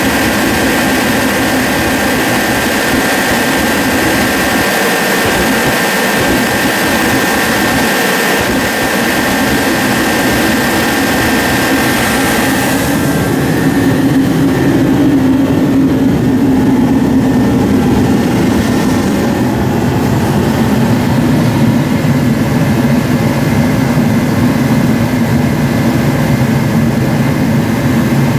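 Forced-air kerosene (torpedo) heater running: its fan and burner make a loud, steady roar. About 13 seconds in the high hiss and whine drop away and a lower roar grows slightly louder. The heater is running on its air/fuel pump set at about 12 pounds of pressure, on old fuel that the owner thinks holds water.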